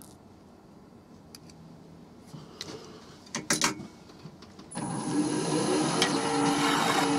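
A few sharp metal clicks and knocks. Then, about five seconds in, a wood lathe is switched on and runs steadily with a hum and a hiss, spinning a square wooden blank between centres.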